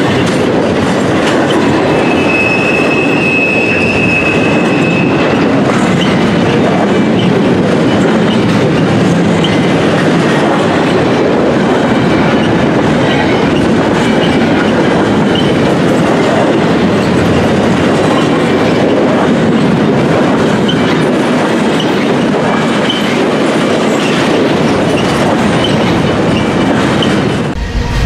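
Empty intermodal well cars of a long freight train rolling past at close range, their steel wheels rumbling and clattering steadily on the rails. A thin, high wheel squeal comes in about two seconds in and lasts about three seconds.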